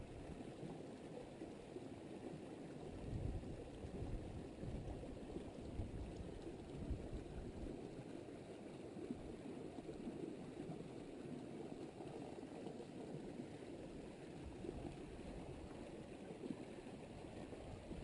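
Light wind on the microphone outdoors: a low, steady rushing with small swells.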